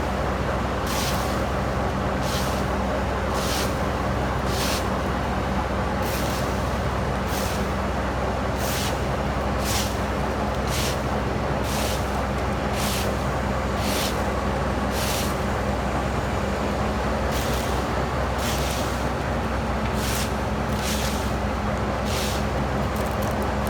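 Heavy engine of truck-mounted tree equipment running steadily at constant speed, with a short hiss roughly once a second and a brief pause in the hissing past the middle.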